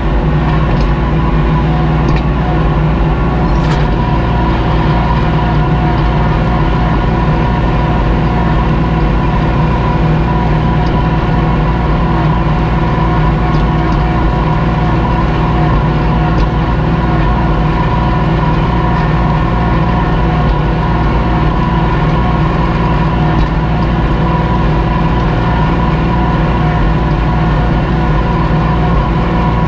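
Kubota L2501 compact tractor's three-cylinder diesel engine running steadily under load as it pulls a disc harrow through the ground.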